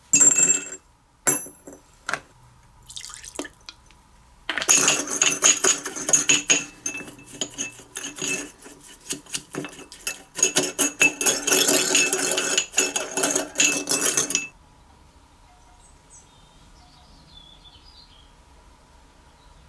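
Metal tools and small metal parts clinking and rattling against each other on a workbench: a few separate clinks, then about ten seconds of rapid clattering with a ringing metallic tone, which stops suddenly before a quiet stretch near the end.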